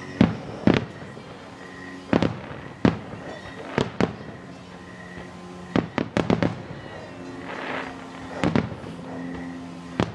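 Aerial firework shells bursting, sharp bangs every second or so, with a quick run of several bangs about six seconds in.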